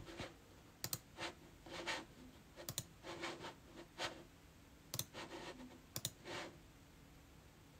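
Faint, irregular typing and clicking at a computer keyboard, some clicks coming in quick pairs, stopping about six and a half seconds in.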